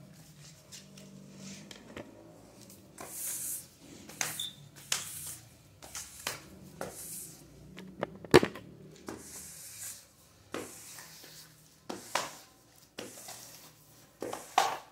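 Rubber floor squeegee swishing water across wet ceramic tiles in short, irregular strokes about once a second, with a sharp knock about eight seconds in.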